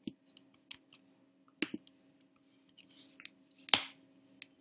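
Computer keyboard keys and mouse or trackpad clicks: about ten separate sharp clicks at an uneven pace, the loudest a little before the end.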